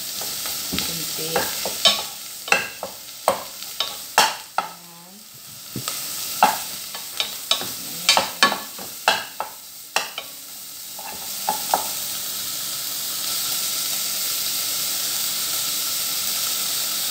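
Boiled chicken sizzling as it is sautéed in a metal pot on a gas stove, with a utensil repeatedly knocking and scraping against the pot as it is stirred. The knocking stops about eleven seconds in and the steady sizzle carries on.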